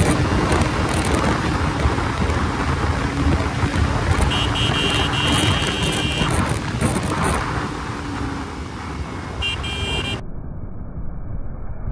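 Riding a motorcycle in traffic: a steady rush of wind and road noise on the microphone. A vehicle horn sounds for about two seconds, starting about four seconds in, and briefly again near the ten-second mark. Right after that the sound turns muffled.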